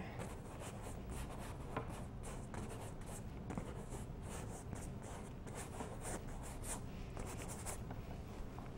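Paintbrush scrubbing oil paint onto a stretched canvas in a run of quick, short strokes: soft, faint swishes and scratches, many per second at times.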